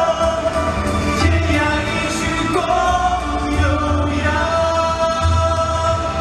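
Two male voices singing a pop duet live into microphones over backing music, with long held notes and a prominent bass line.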